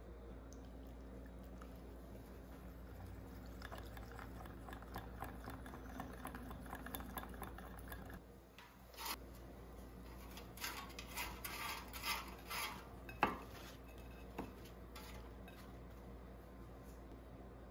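A utensil stirring a white powder-and-liquid mixture in a small glass bowl, ticking and scraping against the glass. About halfway through there is a run of louder, separate clinks of utensil on glass.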